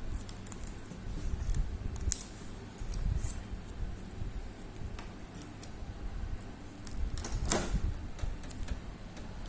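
Handling noises as a microwave oven is opened and its contents are handled: scattered light clicks and taps over a low rumble, with a louder scraping rustle about seven and a half seconds in.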